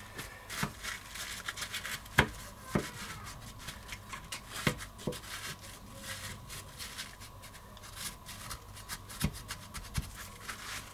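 Kitchen paper rubbing and scraping inside the oily connector socket of a Land Rover Discovery 2 ECU as it is cleaned out, with irregular small clicks and knocks from handling the metal case.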